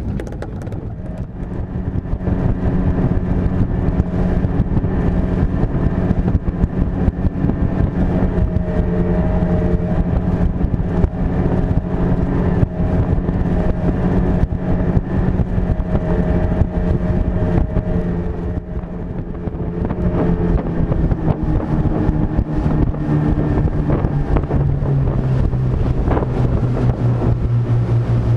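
Boat engine running under way, with wind buffeting the microphone; the engine note drops lower about two-thirds of the way through as the boat slows.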